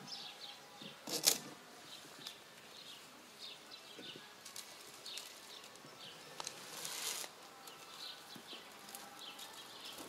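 Birds chirping again and again in short high calls. A brief loud rustle comes about a second in, and a longer rustling noise around seven seconds.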